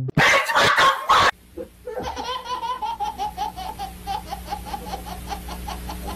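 A loud, brief burst of noise in the first second, then a person laughing in a long, rapid run of 'ha' syllables, about five a second.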